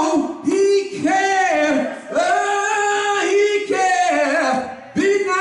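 A man singing, unaccompanied, holding long notes with brief pauses for breath about two seconds in and near the end: a preacher's sung close to his sermon.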